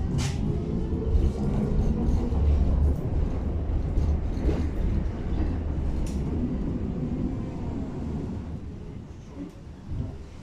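Tatra T6B5 tram running on the rails: a low rumble with a falling motor whine and a few sharp clicks, getting quieter over the last few seconds as the tram slows for a stop.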